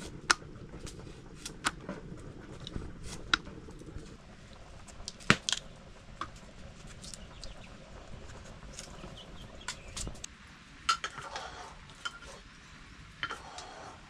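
Metal utensils and cookware clinking and knocking: about a dozen separate sharp strikes, the loudest about five seconds in.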